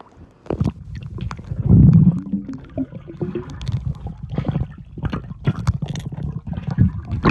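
Pool water heard through a submerged camera: a muffled low rumbling and gurgling with air bubbles and short clicks, loudest about two seconds in.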